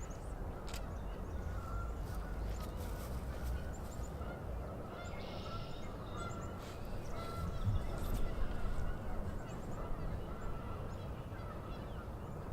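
Canada geese honking repeatedly in short calls, over a steady low rumble, with faint chirps from small birds.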